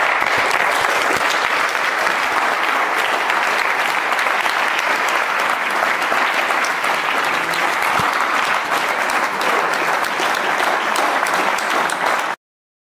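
Audience applauding steadily, a dense even clapping that is cut off abruptly near the end.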